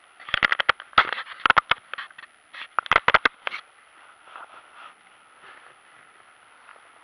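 A trout being landed in a rubber-mesh landing net: a quick series of sharp knocks and splashes in the first half, as the fish thrashes and the net is handled. The knocks then give way to a faint steady hiss.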